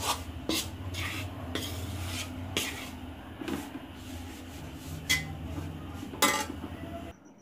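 Steel spatula scraping and clinking against a large metal kadai as moong dal flour is stirred and pressed while it roasts in ghee: irregular scrapes and taps about once a second, the loudest near the end, over a steady low hum. The sound cuts off suddenly just before the end.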